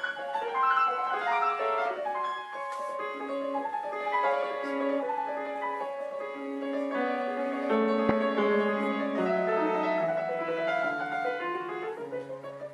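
Grand piano played solo: a quick run of short notes in the middle and upper range, with lower, longer held notes coming in during the second half.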